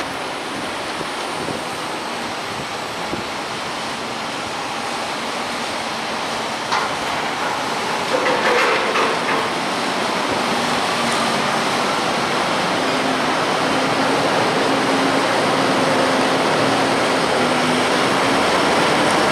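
Fendt 724 Vario tractor's six-cylinder diesel engine working steadily while it pushes silage with a front buckrake, its note rising slightly in the second half. A sharp knock comes about a third of the way in, followed shortly by a brief clatter.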